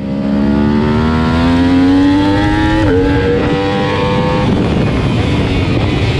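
Yamaha R1 inline-four engine heard onboard at racing speed: the engine note climbs under acceleration, drops sharply at an upshift about three seconds in, then fades after about four and a half seconds into a steady rush of wind noise.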